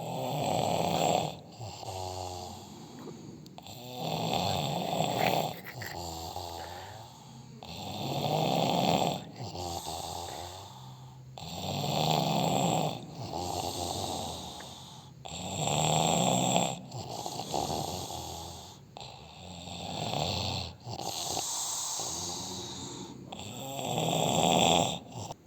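A person snoring in a steady rhythm, about one breath every four seconds. Each cycle is a loud, noisy snore followed by a quieter, wavering, pitched breath.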